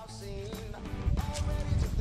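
Background music: a melody over a steady beat with a strong bass.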